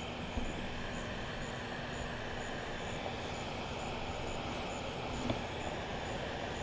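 BMW 7 Series sedan rolling slowly on the road, a steady low engine and tyre hum.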